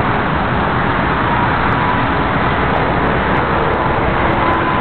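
Jet airliner passing low overhead on approach to land, its engines making a loud, steady rumble with a faint whine above it.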